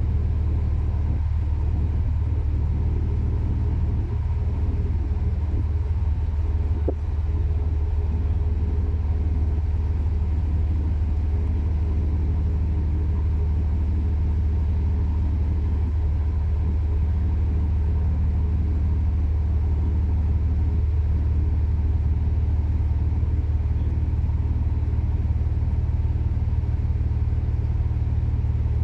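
Marine diesel engine running steadily: a low, even drone with a faint hum above it that does not change. A single small click comes about seven seconds in.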